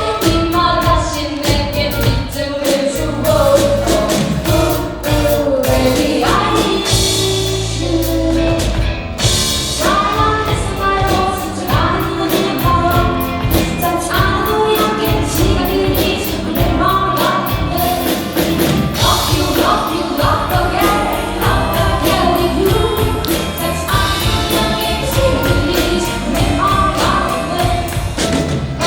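Live band playing a ballad, with a voice singing over drums and band accompaniment.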